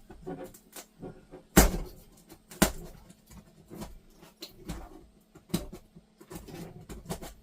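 Utility knife blade cutting and scraping through a wall panel: a string of short scratches and clicks, with two louder knocks about one and a half and two and a half seconds in.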